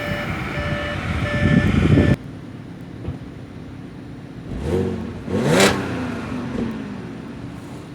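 Supercharged 3.0-litre V6 of a 2014 Audi A6 revved twice while standing: a short blip, then a bigger rev that rises and falls back to idle. Before that, a stretch of repeating tones ends abruptly about two seconds in.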